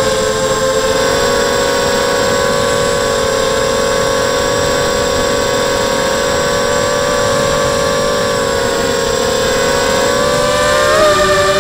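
ZMR-frame FPV quadcopter's brushless motors and propellers whining steadily, picked up by the onboard camera, as several steady tones over a hiss. About eleven seconds in, the tones briefly bend apart, one rising and one dipping, as the motor speeds change in a manoeuvre.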